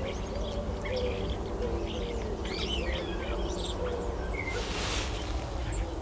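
Small wild birds chirping and calling, many short high calls scattered through, over a low steady background rumble, with a short burst of hiss about five seconds in.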